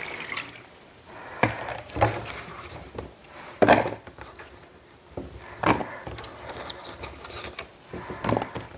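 Kitchen knife cutting peeled potatoes on a wooden cutting board: about five sharp knocks of the blade striking the board, at uneven intervals.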